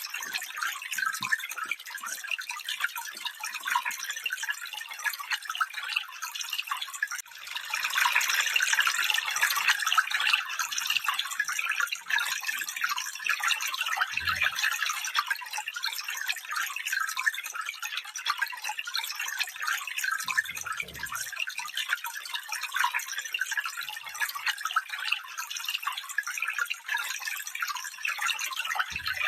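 A stream running, a steady babble of splashing water that grows a little louder about eight seconds in. Two brief faint low bumps come near the middle.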